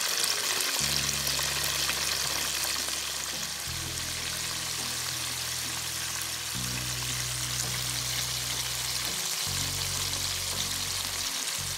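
Breaded chicken pieces deep-frying in hot oil, a steady crackling sizzle, over soft background music of low held notes that change every few seconds.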